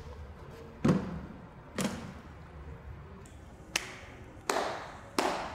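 Two thuds as a hard briefcase is set down on a concrete floor, then three slow, evenly spaced claps from gloved hands.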